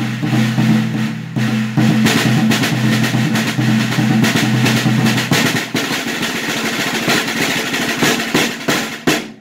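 Snare drum with a coated 14-inch Ambassador head, damped by a beanbag lying on the head, played with sticks in fast rolls and strokes. A steady low ring sounds under the strokes for the first five seconds or so. The playing ends on a hard stroke just before the close.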